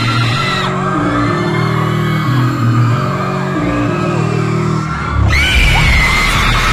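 K-pop dance track over a concert PA with a crowd of fans screaming. About five seconds in, the heavy bass comes back in and the screaming gets louder.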